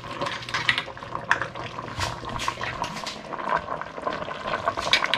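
Crab, vegetables and coconut milk simmering in a stainless steel pot, a steady bubbling crackle, with a few light clicks of a spatula against the pot.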